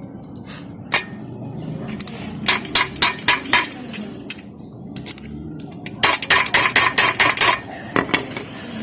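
Sharp metallic taps of a metal tool on bicycle parts during repair: a run of about six taps a couple of seconds in, then a quicker run of about eight taps around the six-second mark.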